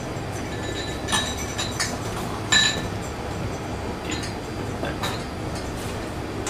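Drinking glasses clinking as they are handled behind a bar: a scattering of short clinks with a ringing note, the loudest about two and a half seconds in.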